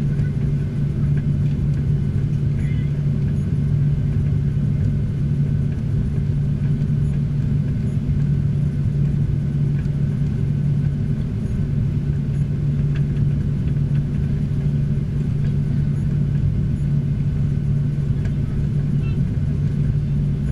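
Cabin noise inside a Boeing 737 as it taxis: the engines and airframe make a steady low hum with a strong drone that holds level throughout.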